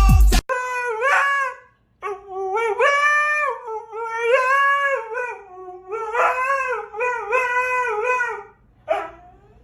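A dog howling: several long, wavering howls, then a run of shorter howls, and one brief yelp near the end.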